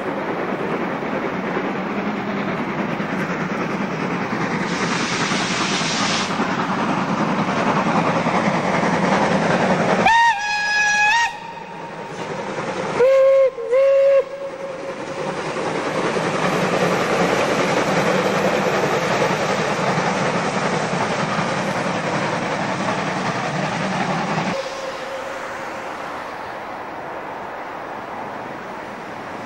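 Steam locomotive running past close by, a steady rush of steam and running gear, with its steam whistle: one blast about ten seconds in, then two short blasts a few seconds later. Near the end the sound drops to a quieter, more distant rumble.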